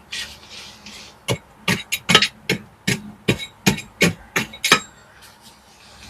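A short scrape, then about a dozen sharp knocks at roughly three a second, like hand hammer blows on masonry.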